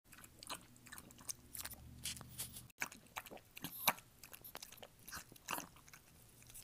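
A cat eating dry food from a bowl: a scatter of faint, crisp crunches at uneven intervals.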